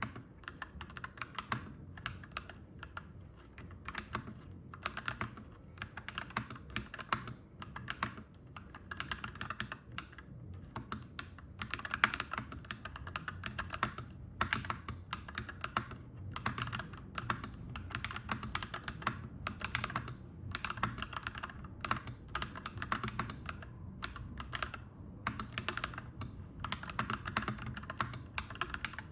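Continuous typing on a clacky mechanical keyboard: fast runs of key clacks in bursts, with short pauses between them, over a low steady hum.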